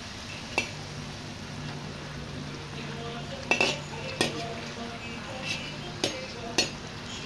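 Spatula clinking and scraping against a wok as whole fried fish is turned in simmering dark soy sauce, about six sharp clinks over a steady sizzle.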